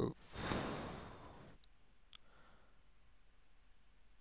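A person's breath sighed out close to the microphone, fading away over about a second, followed by two faint mouse clicks.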